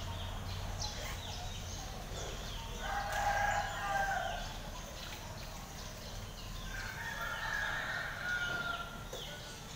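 A rooster crowing twice, each crow a long held call, about three seconds in and again about seven seconds in, with short high chirps repeating throughout.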